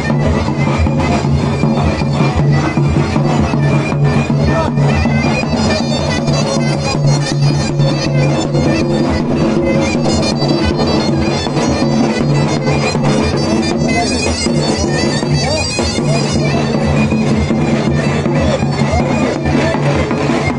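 Zurna and davul playing a horon dance tune: the double-reed zurna's reedy melody over the steady beat of the big drum.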